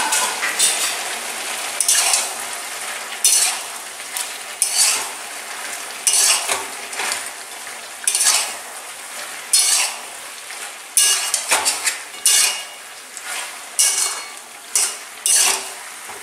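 Metal spatula scraping and stirring through chicken, potatoes and onions in a metal kadai, about one stroke a second, over a steady frying sizzle.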